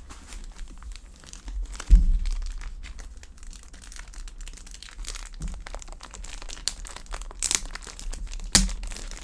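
Packaging crinkling and rustling as it is handled and unwrapped by hand, with a dull thump about two seconds in and a smaller one near the end.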